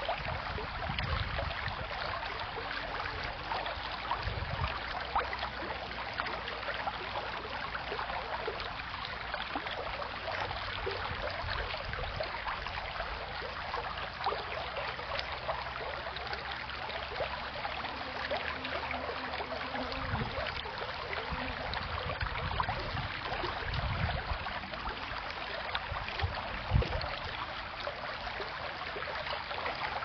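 Shallow creek water rippling over a pebble bed, a steady babble, with a few brief low rumbles in the second half.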